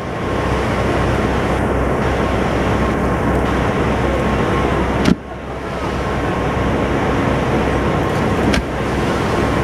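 Steady low hum and rush of a boat's engine on the water, with two sharp knocks, one about five seconds in and one near the end.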